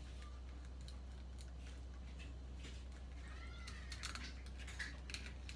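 Small aji-kiri knife slicing a sardine on a plastic cutting board: soft scrapes and small clicks, a few sharper clicks between four and five seconds in. About three and a half seconds in comes one short high squeak that rises and falls.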